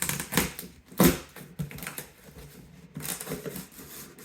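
Cardboard box being cut open with a knife: a series of sharp cracks and scrapes of blade on tape and cardboard, the loudest about a second in, then softer rustling of the flaps.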